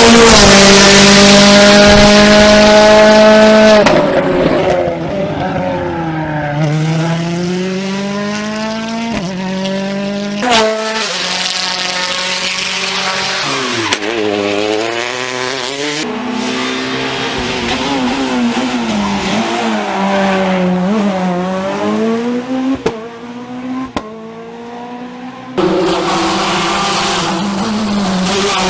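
Rally cars at full throttle on a special stage, engine notes climbing and dropping sharply with gear changes and lifts for corners, over several separate passes. Loudest in the first few seconds, then a run of quicker rises and falls.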